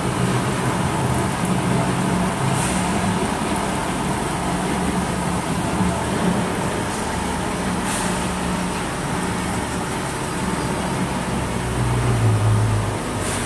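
Foundry sand-reclamation machinery, including a belt conveyor fed from a sand hopper, running with a steady mechanical drone and hum. A deeper hum swells briefly near the end.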